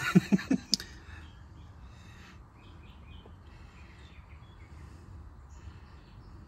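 Faint steady background noise with a few faint, high, scattered chirps.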